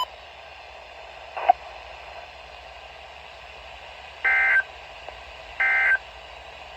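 NOAA Weather Radio receiver playing steady static hiss, with a short click about a second and a half in, then two short touch-tone (DTMF) beeps a little over a second apart near the end.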